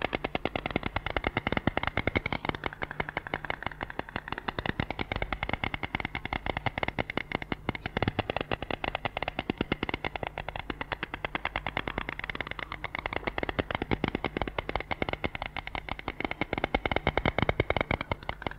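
White stork bill-clattering: a fast, dry rattle of clacks that goes on without a break.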